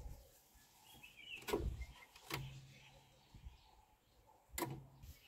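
A few faint clicks and knocks of a hand handling the loose fuel return hose and the phone, three short ones spread through, two of them followed by a brief low hum.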